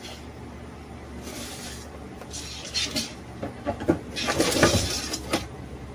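Rubbing and scraping on an unfired clay pot, with a few sharp clicks, growing louder in the second half, over a steady low hum.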